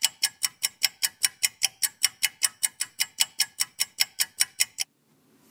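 Rapid, even ticking, about five sharp ticks a second, that stops abruptly about three-quarters of a second before the end.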